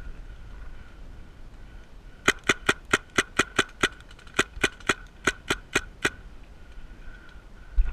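Paintball marker firing about fifteen shots in three quick strings, roughly four to five a second, each a sharp pop.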